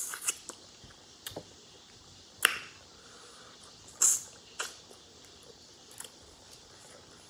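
Crab being eaten by hand: a handful of short, sharp clicks and wet smacks from shell being picked apart and meat sucked off it, the loudest about two and a half seconds in and another at about four seconds.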